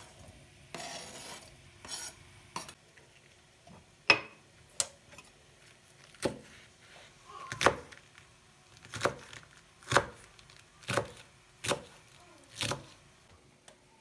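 Diced onions pushed off a plastic cutting board into a frying pan, then a knife chopping green peppers on a plastic cutting board. The chops come as separate sharp knocks, about one a second.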